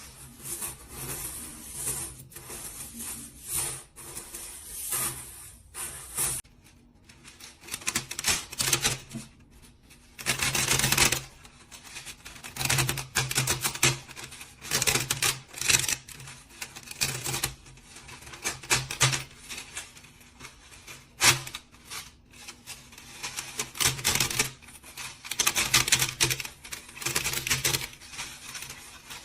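Rapid, irregular mechanical clicking and clattering in bursts, with a low hum that comes and goes along with it.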